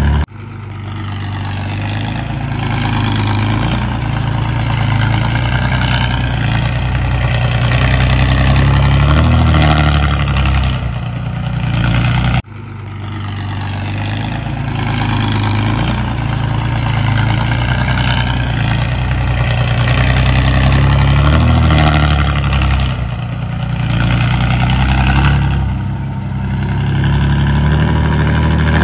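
Heavy diesel engine of earthmoving machinery running under load, its pitch easing up and down. The sound cuts off abruptly about twelve seconds in and picks straight up again.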